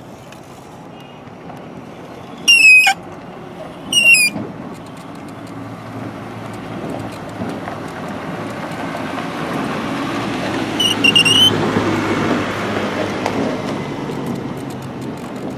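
Road traffic noise that swells slowly as a vehicle passes, with three short high-pitched squeaks: two in the first few seconds and one about eleven seconds in.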